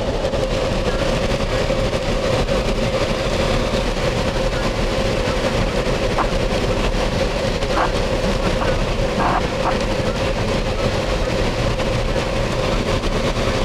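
Steady road and engine noise inside a car driving fast, with a constant hum running through it.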